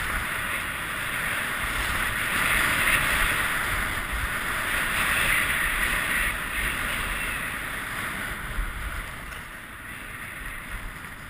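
Skis hissing over snow in long swelling swishes as the skier runs downhill, with wind buffeting the microphone underneath; the hiss eases off over the last few seconds.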